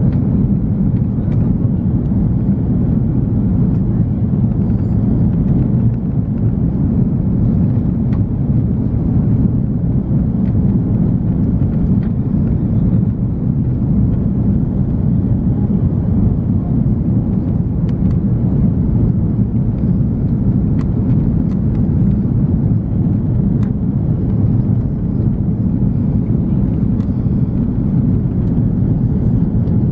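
Steady low rushing cabin noise inside an Airbus A340-300 airliner, from its four CFM56 engines and the airflow past the fuselage, holding an even level with a few faint ticks.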